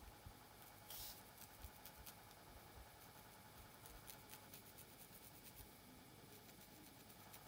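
Faint scratching and crackling of long fingernails parting hair and picking at the scalp, with one brief louder scratch about a second in.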